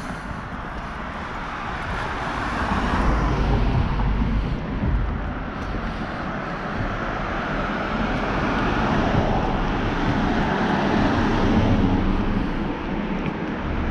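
Road traffic: cars passing with a steady noise that swells louder about three seconds in and again in the second half.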